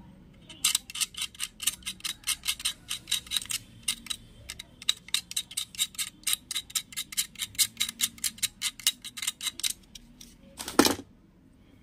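Utility knife blade scraping along the metal pins of a hybrid amplifier IC module in quick, even strokes, about five a second, followed by a single louder knock near the end.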